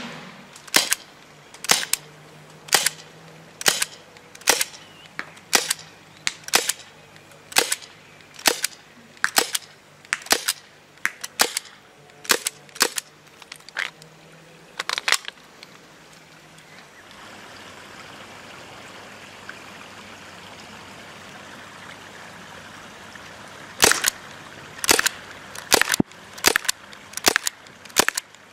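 Gas airsoft pistol, an HFC C96 non-blowback replica dressed as a DL-44 blaster, firing single shots: sharp pops about one a second for roughly fifteen seconds. Then a pause of several seconds with a steady faint hiss, and a few more shots near the end.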